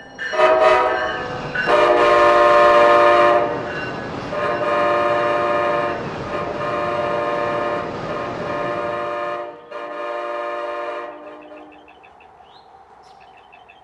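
NCTD Coaster commuter train's horn, a multi-note chord, sounding a short blast and then several long blasts of a few seconds each, stopping about eleven seconds in. After it, a fainter rapid ringing is heard near the end.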